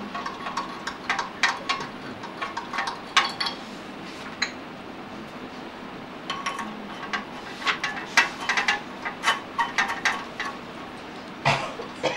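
A scattered run of light clinks and clicks, like glassware or dishes being handled, some ringing briefly, with a busier stretch in the second half.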